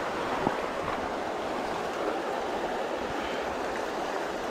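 A shallow river rushing steadily over rapids and stony riffles, with one light tap about half a second in.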